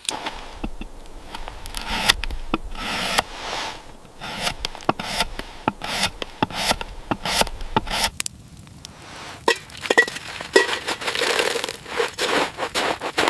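Pine bark being scraped and stripped from the wood to get at the inner bark: a run of uneven rasping strokes broken by sharp cracks and snaps.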